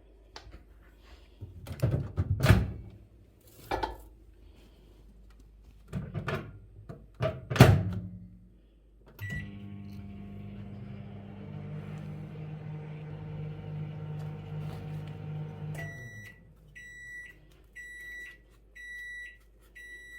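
Microwave oven: a few knocks and clatters of the door and dishes, then a start beep and the oven running with a steady hum for about six seconds. It stops and gives a series of short high beeps about a second apart, the signal that it has finished.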